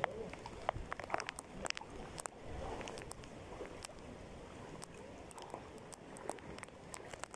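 Water sloshing and splashing as legs wade through knee-deep floodwater, with scattered sharp ticks throughout.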